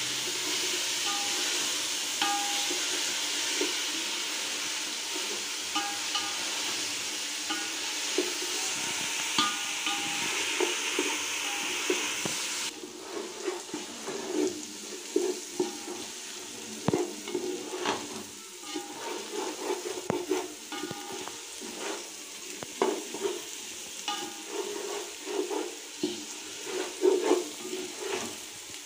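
Sliced onions, green chillies and whole spices sizzling in hot oil in a metal pot, being sautéed until soft, while a spatula scrapes and knocks against the pot as they are stirred. The sizzle is loud at first and drops away suddenly about 13 seconds in, leaving mostly the scraping of the stirring.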